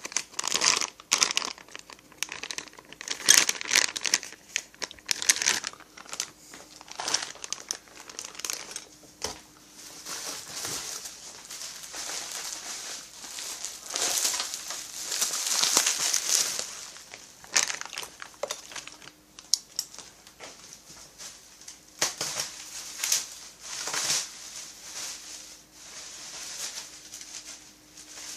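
Parts bags crinkling and rustling in irregular bursts as small chainsaw kit parts are handled and unpacked.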